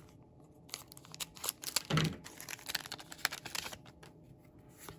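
Foil trading cards being handled by hand: a soft, irregular run of clicks and paper scrapes as cards are slid apart, flicked through and laid down on a playmat.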